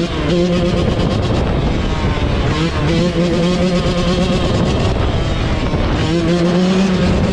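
Small off-road engines running loud, the engine note holding a steady pitch for a second or so at a time, then breaking off and coming back.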